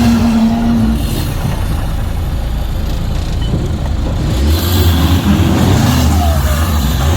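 Off-road 4x4 vehicle engine running and revving, its low drone strengthening about four and a half seconds in.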